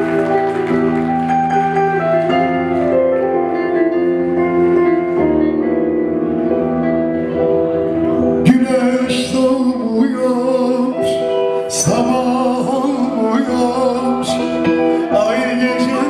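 Live band playing a Turkish song with a man singing into a microphone: held keyboard chords at first, then drum hits come in about eight and a half seconds in.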